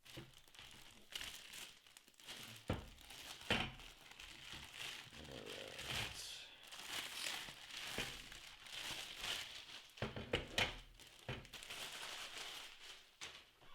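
Packaging crinkling and rustling as it is unwrapped and handled, with some tearing. There are a few sharp knocks, the clearest about three and a half seconds in and again about ten and a half seconds in.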